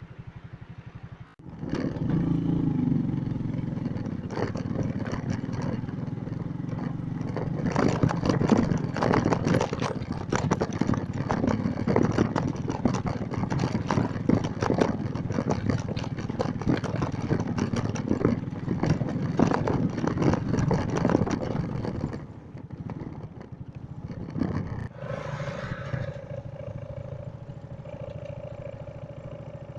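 Motorcycle engine running under load over a rough, rocky track, with constant clattering and rattling. It drops quieter about twenty-two seconds in, and a steady hum comes in near the end.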